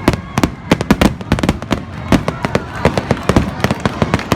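Aerial fireworks exploding in a rapid, irregular barrage of sharp bangs, several a second and overlapping.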